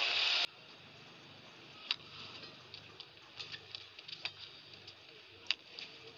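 Badminton rally: sharp cracks of rackets striking the shuttlecock, one every second or two, with fainter ticks between. A loud burst of noise cuts off abruptly about half a second in.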